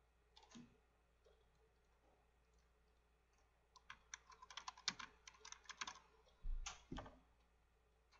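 Typing on a computer keyboard: a single click about half a second in, then a quick run of keystrokes lasting about two seconds, ending in a couple of heavier knocks with a low thump.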